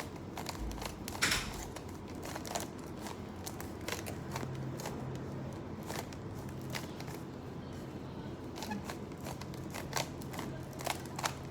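Plastic Rubik's cube being turned by hand: irregular clicks and snaps as its layers are twisted while working on the first layer.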